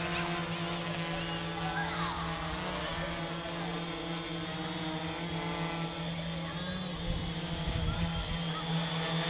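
DJI F450 quadcopter's four brushless motors and propellers buzzing in flight, the pitch of the hum wavering up and down as the throttle changes. Low rumbling gusts of wind or prop wash hit the microphone about seven to eight and a half seconds in.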